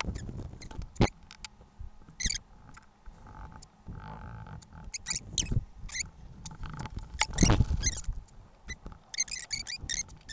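Hands handling glued leather wallet panels on a cutting mat: scattered rustles, small taps and scrapes as the pieces are lined up and pressed together, with a longer, louder rustle about seven seconds in.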